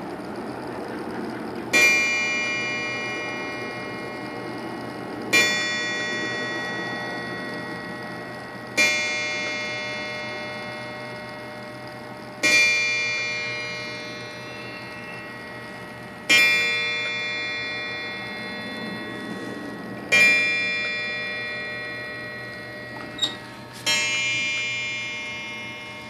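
Seth Thomas 8-day time-and-strike mantel clock's hammer striking its coiled wire gong seven times, slowly, about every three and a half to four seconds. Each strike rings out and fades away. A short sharp click comes just before the last strike.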